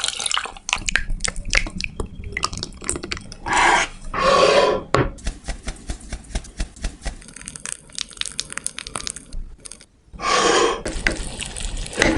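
Kitchen work on a cake: a quick run of small clicks and taps from utensils, broken by a few short rushing noises about a third of the way in and again near the end.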